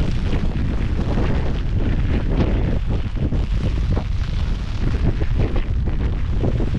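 Strong wind buffeting the microphone: a continuous low rumble with irregular gusty surges.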